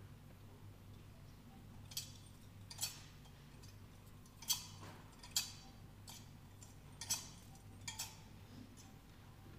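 About seven light clicks and knocks, spaced irregularly and roughly in pairs, over a faint steady low hum.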